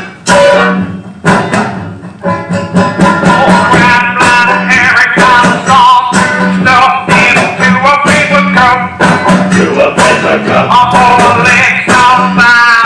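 Music with a steady beat of sharp percussive strokes under a wavering pitched melody, perhaps a voice.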